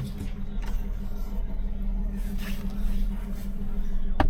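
An engine idling steadily with a low, even hum, and a single sharp knock near the end.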